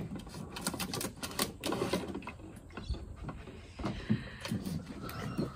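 Irregular light clicks and taps, most frequent in the first two seconds, as a Border Collie puppy paws at the bowl of a plastic pet water fountain, playing with the water.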